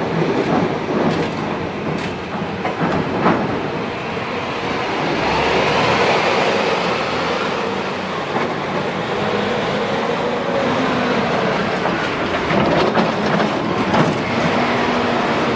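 CVS Ferrari FH320 heavy forklift running and driving, a dense mechanical rumble with a few sharp metallic clanks and rattles and some wavering squeals in the middle.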